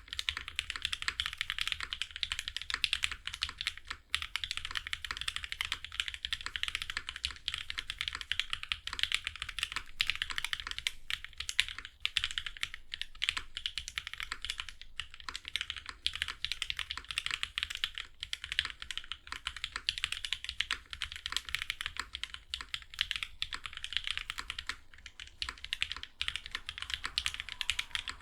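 Continuous fast typing on a Tsubame Mk.1/60 prototype 60% mechanical keyboard: Popu linear switches lubed with Krytox 205G0, an aluminium full plate and GMK ABS keycaps. The keystrokes form a dense, steady stream with only a brief pause or two.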